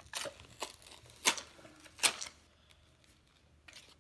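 Toy box packaging being handled and pulled open: a few sharp clicks and taps with light rustling, the loudest about a third of the way in and about halfway.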